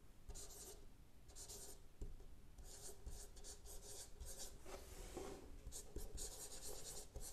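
Marker pen writing on a whiteboard: a quiet run of short, irregular scratchy strokes as words are written out.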